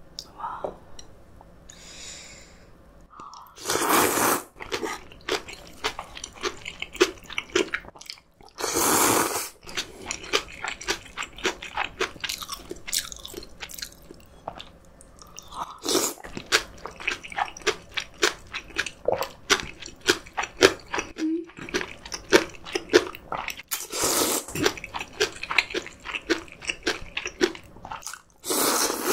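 Close-miked eating of crunchy fresh spicy kimchi and cold soybean-soup noodles: many quick wet crunches of chewing, broken by about five loud slurps of about a second each.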